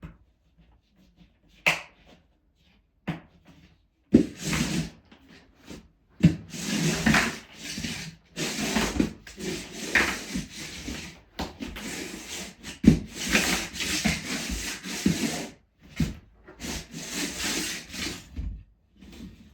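Repeated scraping and rubbing strokes over a Ditra floor membrane, with a few sharp knocks in between, most likely as dust and debris are cleared from the surface.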